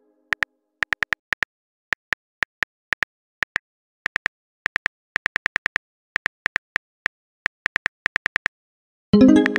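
Simulated phone keyboard tapping: short, sharp clicks in irregular runs of a few a second while a text message is being typed. About nine seconds in, a chime with several tones sounds as the message arrives.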